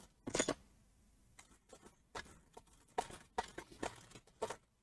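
Small hard tools clicking and knocking as they are picked through and handled: about a dozen short, irregular light clicks.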